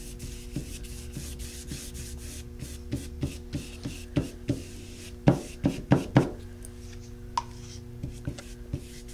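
Paintbrush scrubbing thick chalk paint onto a rough, textured board: a series of short brush strokes, several a second, loudest in a cluster a little past the middle.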